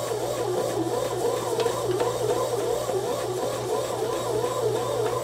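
Oster bread machine's motor kneading a stiff dumpling dough on its Dough program. It gives a steady low hum with a whine that wavers up and down as the paddle works the lump around the pan.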